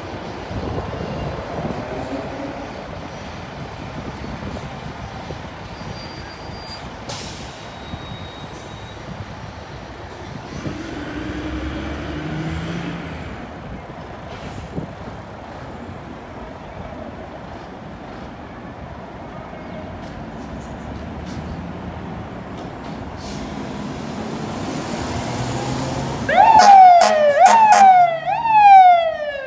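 Steady city street traffic noise, then about three seconds before the end a fire engine's siren starts up loud, its pitch sweeping quickly up and down over and over. The siren comes from the 2004 Seagrave pumper running as Engine 81 as it pulls out of quarters on a response.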